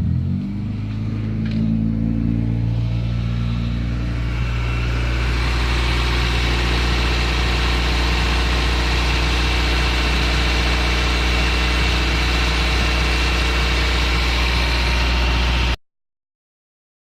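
Car engine running, with a high whine and hiss that builds over the first few seconds and then holds steady. It cuts off abruptly near the end.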